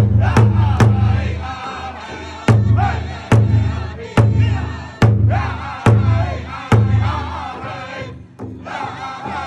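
Powwow drum group: several drummers strike a large powwow drum together under loud, high-pitched group singing by men and women. Three quick strikes open the passage, then loud single strikes come slowly, a little under one a second. Near the end the drum stops and after a short break the voices carry on alone.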